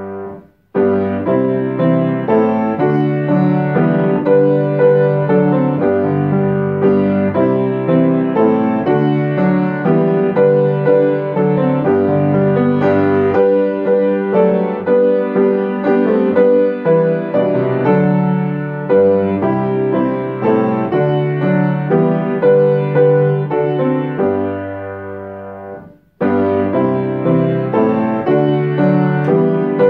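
Upright piano playing a hymn tune in full chords with a steady beat, stopping briefly just after the start and again about 26 seconds in between verses.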